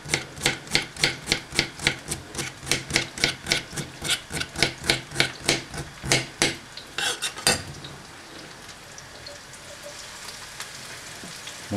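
Knife chopping an artichoke stem into thin rounds on a marble board, about three to four cuts a second; the chopping stops near the middle, and a steady sizzle of pieces frying in hot oil in a pan follows.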